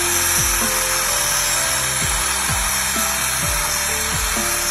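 Angle grinder's small cutting disc grinding into a steel ratchet wrench, a steady high-pitched hiss of metal being cut as the key shape is worked into the handle. Background music with deep falling bass hits plays over it.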